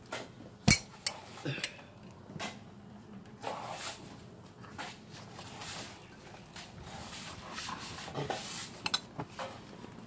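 Clanks, knocks and scrapes of a foundation-pier hydraulic jack being lifted out and precast concrete pier cylinders being handled. One sharp clank just under a second in is the loudest, followed by scattered smaller knocks.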